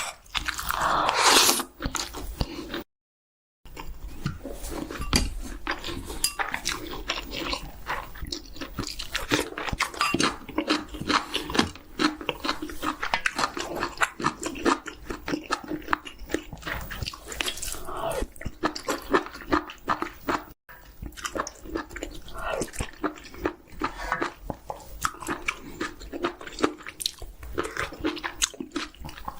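Close-miked chewing and crunching of chicken, with a steady run of wet, crackling bites and chews.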